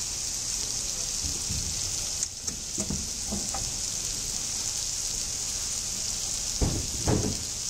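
Vegetables sizzling steadily as they fry in oil in a large iron pan, with a couple of dull thumps near the end.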